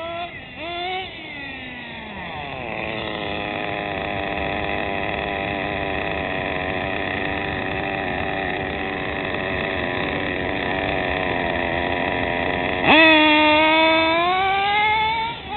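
HPI MT2 18SS nitro stadium truck's Sirio TX18 nitro engine, still being run in: a couple of short revs that wind down in pitch, then running steadily at one pitch for about ten seconds. About thirteen seconds in it jumps to full throttle, the loudest part, climbing in pitch as the truck launches, and eases off near the end.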